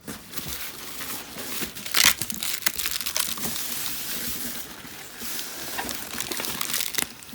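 Packing material rustling and crinkling as a shipping box is unpacked by hand, with scattered crackles and a louder crackle about two seconds in.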